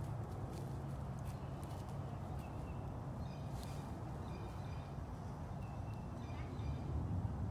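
Outdoor ambience: small birds chirping in short calls over a steady low rumble, with scattered crunching steps on dry leaf litter.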